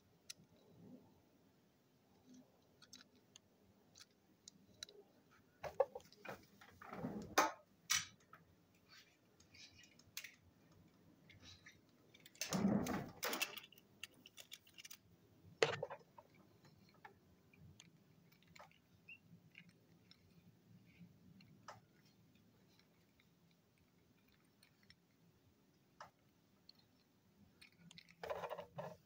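Scattered light clicks and rustling handling noises as small die-cast toy cars are picked up and turned in the hand, with a few louder rubbing bursts about seven and thirteen seconds in.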